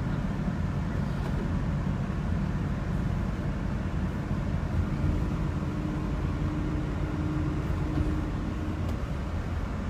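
Steady low rumble of a moving passenger vehicle, heard from inside the cabin. A faint steady hum joins it from about five seconds in until near the end.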